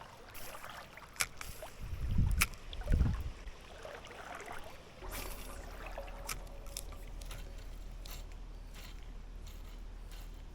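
River water sloshing and trickling around a wading angler, with scattered sharp clicks and two heavy low thumps about two and three seconds in, then a steady low hum from about halfway.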